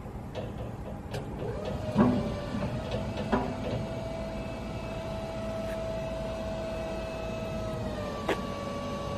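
Genie GS-4069DC electric scissor lift running under power: a steady electric motor whine that starts about a second and a half in and holds, with a few sharp clicks.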